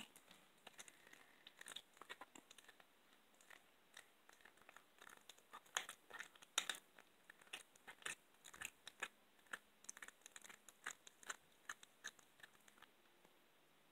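A cat chewing a raw chicken wing, crunching through the bone with its teeth in faint, quick, irregular crunches.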